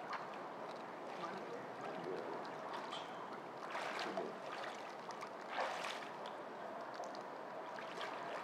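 Swimming-pool water lapping and trickling steadily, with a couple of brief louder splashy sounds about four and six seconds in.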